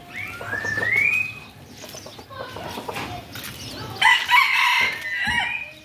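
Rooster crowing twice: a rising crow about a second long near the start, then a louder, fuller crow about four seconds in that drops in pitch at the end.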